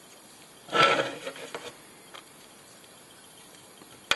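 Handling noise at a fly-tying vise: a short clicking, rattling rustle about a second in, then a sharp click near the end as tools are handled.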